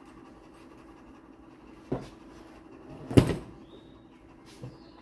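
Knocks of hard objects being handled or set down: a sharp knock about two seconds in, a louder clattering knock a second later, and a light knock near the end, over a steady low hum.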